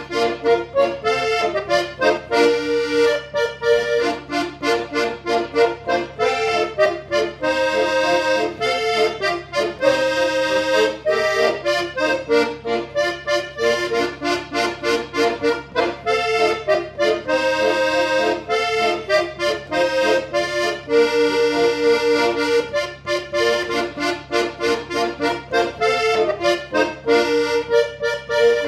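Piano accordion played solo: a tango melody on the keyboard over rhythmic chords underneath, continuing without a break.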